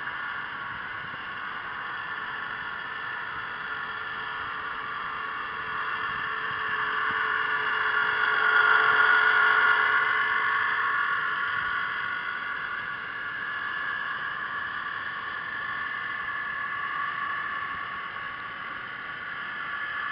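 Whine of a radio-controlled model submarine's electric motor and propeller, heard through the water, swelling to its loudest as the submarine passes close about eight to ten seconds in, then easing off.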